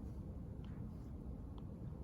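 Quiet library room tone: a steady low hum like ventilation, with a few faint small clicks and taps scattered through it.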